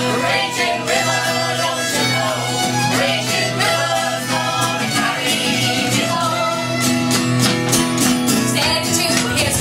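Live folk band playing an instrumental passage of the song, with fiddle and guitar.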